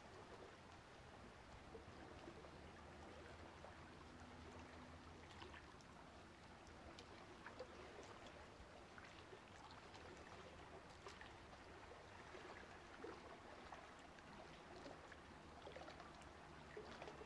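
Near silence: a faint steady hiss with a low hum and a few faint scattered ticks.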